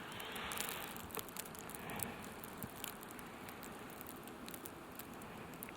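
Faint outdoor trail ambience: a soft hiss with scattered light ticks and crackles throughout.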